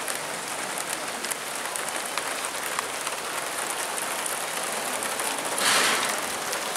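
Steady rain falling, a continuous hiss of drops on wet surfaces. Near the end a louder rush of noise rises for about half a second and fades.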